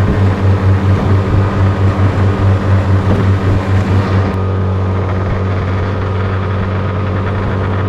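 Small outboard motor on a jon boat running at speed, a steady low drone. For the first four seconds the level pulses a few times a second as the hull rides the waves, then it evens out.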